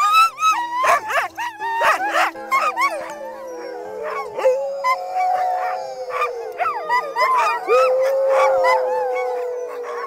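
A team of harnessed sled dogs barking, yipping and howling together, with one long howl held steady from about halfway on.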